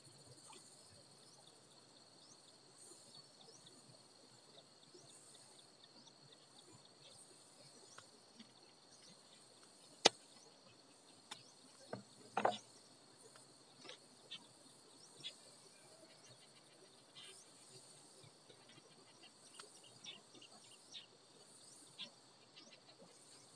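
Steady high insect chorus, with a sharp loud knock about ten seconds in, a short cluster of knocks around twelve seconds, and scattered faint clicks after.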